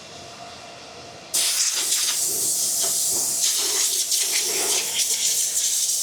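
Compressed air blasting through an ASIC Bitcoin miner to blow dust out of its fans and heat sinks. A loud, steady hiss starts suddenly about a second in and keeps going.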